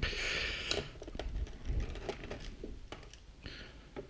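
Screwdriver working screws out of a laptop's plastic bottom cover: a short scraping rasp in the first second, then scattered light clicks and taps of the screwdriver and small screws being handled.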